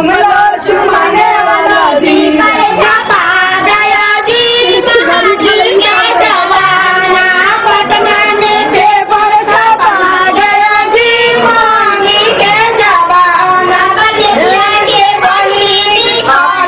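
A song with music: a high female voice sings a wavering melody with vibrato.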